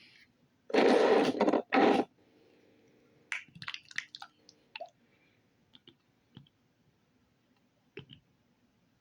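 Slime being played with by hand: a loud, noisy burst lasting about a second and a half, then a run of small clicks and pops that thin out to a few isolated ones.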